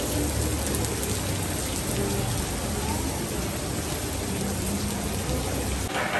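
Heavy rain pouring onto a flooded street, a steady hiss. Near the end it gives way to people talking.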